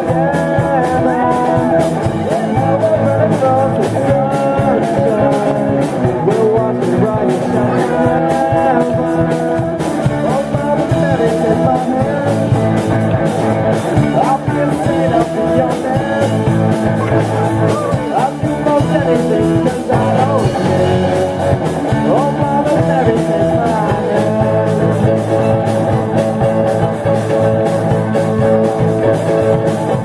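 Live amplified rock band playing a song: drum kit keeping a steady beat under bass guitar, electric guitar and keyboard, with a voice singing over it.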